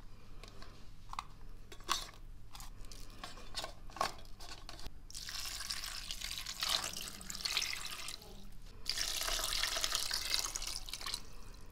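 Water poured from a cup into a stainless steel pot of meat, beans and dried peppers, in two pours with a short break between them, filling the pot. Before the pouring, light taps and rustles as dried peppers are laid in the pot.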